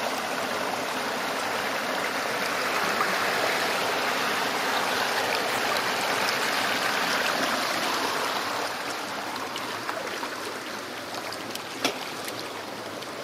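Shallow water splashing and rushing steadily, louder in the middle and easing off after about nine seconds, with a few sharp clicks near the end.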